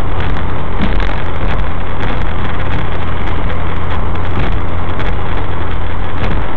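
Suzuki SX4 with a K&N Apollo cold-air intake cruising at steady speed, heard from inside the cabin: a constant low engine drone mixed with road and tyre noise.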